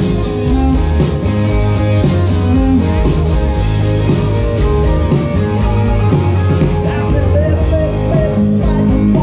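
Live rock band playing through a stage PA: electric guitars over bass and a drum kit, with a steady beat.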